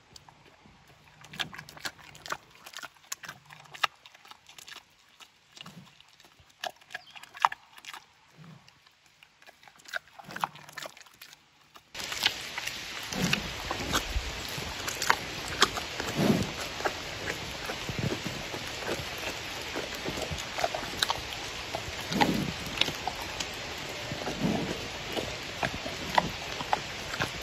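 Giant panda chewing a steamed corn bun: irregular wet clicks and smacks. About halfway through the sound changes to a louder recording with steady hiss, scattered clicks and a few short, low sounds from pandas.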